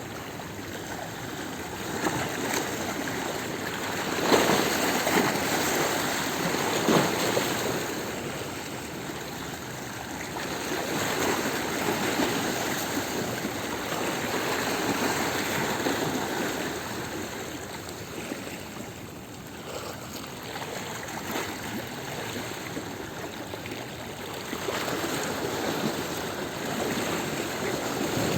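Sea waves washing over a stony shore: a continuous rush of surf that swells and ebbs, with sharper crashes of water on the stones about four and seven seconds in.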